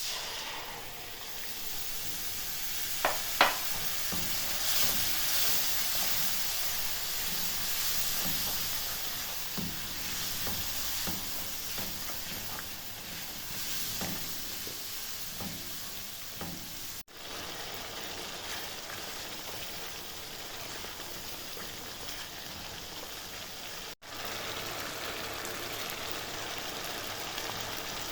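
Food sizzling steadily in hot oil in a cooking pot. Two sharp clinks, like a utensil against the pot, come about three seconds in.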